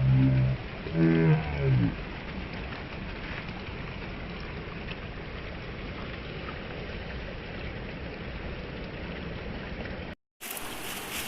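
Steady rushing of river water. It opens with a few low, drawn-out pitched tones in the first two seconds, and the sound cuts out for a moment near the end before the water noise resumes.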